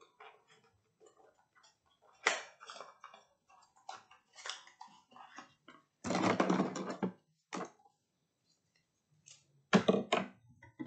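Handling noises of a plastic cosmetic cream tube and its cardboard box being opened and squeezed over a glass bowl: scattered light clicks and knocks, with a louder noise lasting about a second about six seconds in and a few more sharp clicks near the end.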